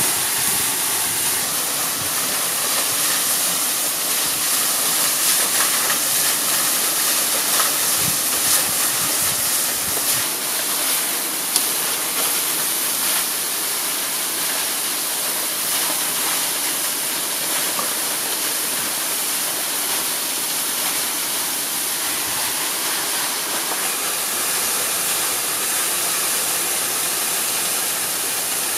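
Steady rushing noise of a waterfall, with one sharp click about eleven seconds in.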